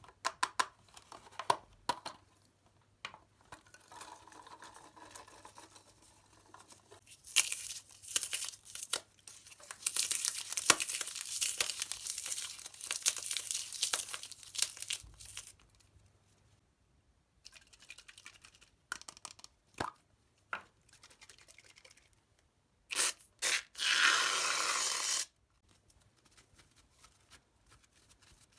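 Close-miked tearing and crinkling, with scattered taps and clicks, as slime-making materials and their packaging are handled. Near the end comes one loud, even tear lasting about two seconds.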